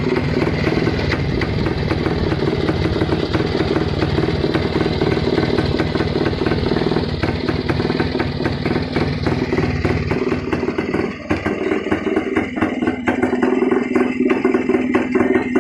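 Rajdoot 175's single-cylinder two-stroke engine running, a fast even stream of firing pulses. About ten seconds in, the deep low end drops away and the beat becomes more spaced out.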